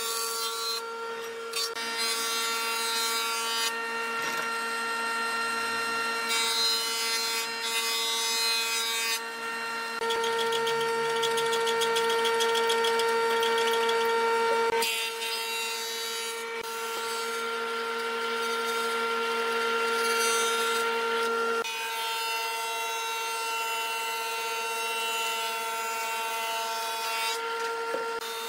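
Combination jointer-planer running with a steady motor hum, its cutter head rasping as a square timber is fed across it; the cutting hiss grows and fades in stretches.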